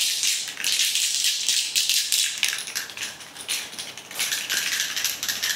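Aerosol can of KBS header paint being shaken hard, the mixing ball inside rattling rapidly as the paint is mixed just before spraying.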